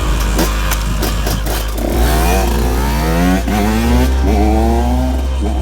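KTM EXC 125 two-stroke single-cylinder engine revved in several quick blips, the pitch climbing with each, over background music with a heavy bass.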